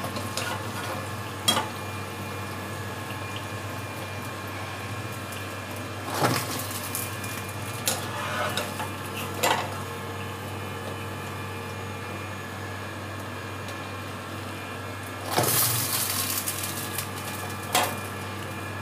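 Fried urad dal fritters being dropped into salted water in a steel bowl: a handful of short splashes and knocks, several seconds apart, with a small cluster near the end, over a steady faint hum.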